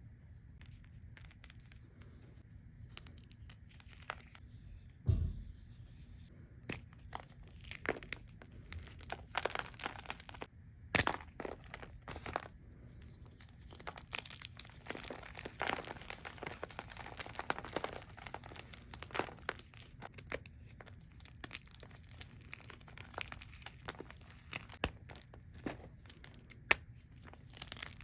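Gym chalk crushed and its wrapping crinkled close to the microphone: a dense, irregular run of crackles, crunches and crinkling. A low thump comes about five seconds in and a sharp crack about eleven seconds in.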